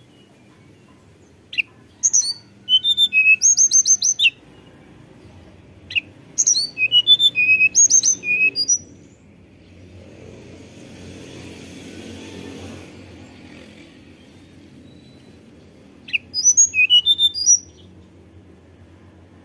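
Hill blue flycatcher singing its whistled song in three bouts of quick, high, sliding notes: the first two last about three seconds each, and a shorter one comes near the end.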